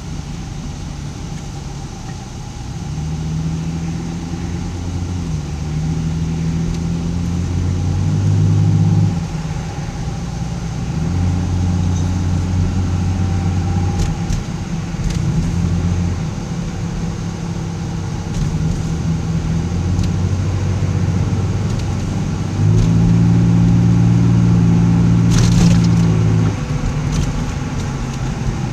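Car cabin at low speed: a loud, steady low droning hum that swells and drops back in stretches of a few seconds, the noise the driver suspects is a bad wheel bearing. A brief sharp click near the end.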